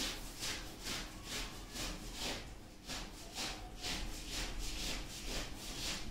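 Whiteboard marker writing on a whiteboard: a run of short rubbing strokes, about two or three a second.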